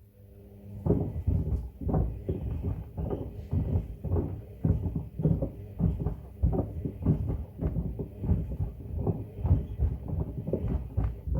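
Pieces of wood tumbling in a Hoover washing machine drum, knocking and clunking against it in an irregular run of several knocks a second that starts about a second in.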